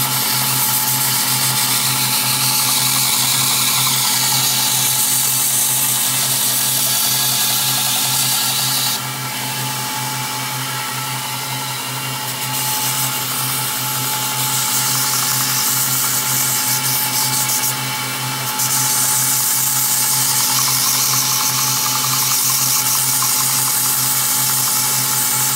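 Belt grinder running with a 220-grit belt while a steel chopper blade is pressed to it to grind the edge: a steady motor hum under a bright grinding hiss. The hiss eases off about nine seconds in and again briefly near eighteen seconds. The grinding is rolling a wire edge (burr) onto the blade.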